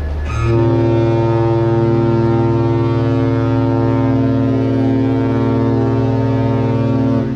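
Cruise ship MSC Orchestra's horn sounding one long, deep, steady blast that starts about half a second in and stops just before the end: a departure signal as the ship leaves port.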